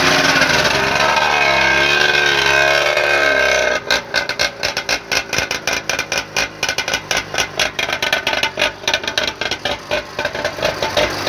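Homemade csettegő tractor's engine running at speed, its pitch wavering, then throttled back about four seconds in to a quick, even chugging idle.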